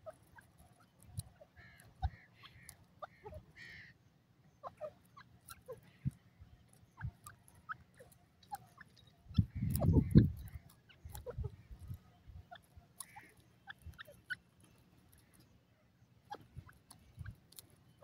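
Grey francolin giving a few short, soft calls about two to four seconds in, with faint scattered ticks through the rest. A brief low rumble about ten seconds in is the loudest sound.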